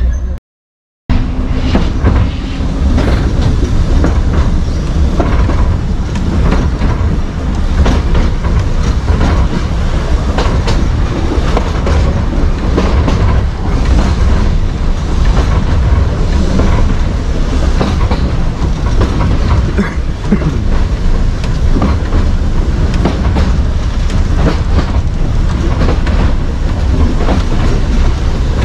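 Heritage electric tram running along the line, heard from on board: a steady low rumble with wheels clicking over rail joints and the body rattling. A brief dropout interrupts it just after the start.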